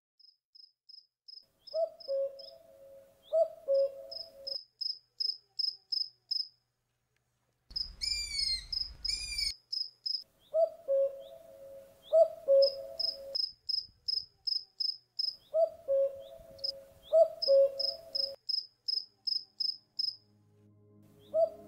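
Night ambience: an insect chirping in a fast, regular rhythm of about four short high chirps a second, with a lower call repeated in short phrases. A brief burst of rising chirps comes about 8 seconds in.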